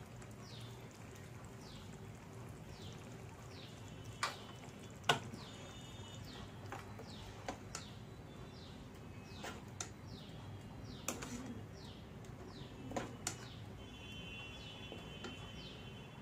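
A bird chirping over and over in short falling notes, more than once a second, with a brief trill near the end. Over it, a few sharp clinks of a steel spoon against a ceramic bowl, the loudest sounds here.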